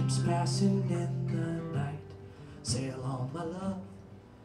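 Live band playing an instrumental passage with acoustic guitar, electric guitar and drums; it grows quieter toward the end.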